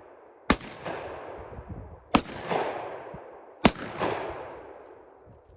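Shotgun firing birdshot: three shots about a second and a half apart, each trailing off in a long echo.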